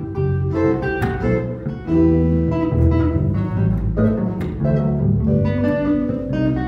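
Small ensemble playing a slow piece, with an electric bass guitar plucking the low line under electric guitars.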